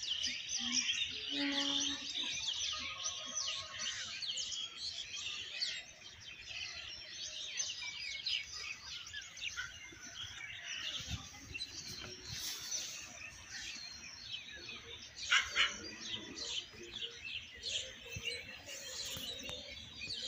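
Many small birds chirping and twittering together in a continuous dense chorus of quick high notes, with a short louder noise about fifteen seconds in.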